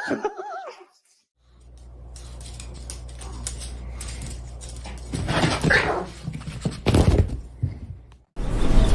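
A dog whining with a wavering, bending pitch for about the first second, in answer to being asked about a walk. After a short gap comes a steady low hum with a few scuffs and knocks.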